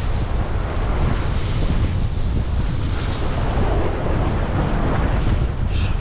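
Wind buffeting the microphone over sea surf breaking and washing against the rocks, a steady rushing noise.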